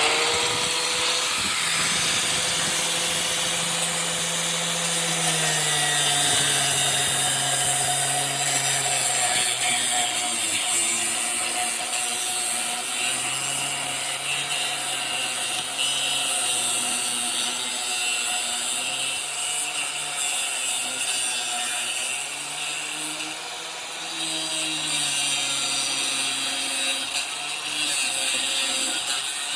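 Angle grinder with a cutting disc running continuously as it cuts through the metal of a window air conditioner. Its motor pitch drops several times as it bogs in the cut and rises again as the load eases.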